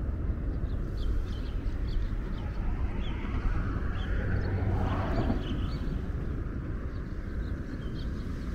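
Outdoor city ambience: a steady low rumble, with short bird chirps scattered through the first half.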